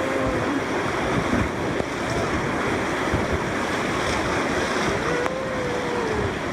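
Whitewater river rapids rushing steadily around a raft, a constant churn of fast water. The water is choppy from rocks on the riverbed and heavy rain the night before.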